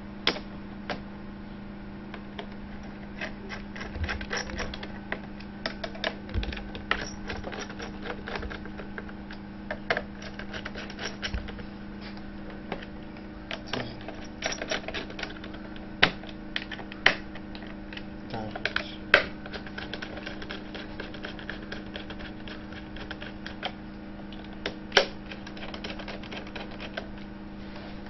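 Quick, irregular small clicks and ticks of a screwdriver driving and seating the screws that hold a laptop's copper heat-pipe heatsink down over the processor, with a steady low hum underneath.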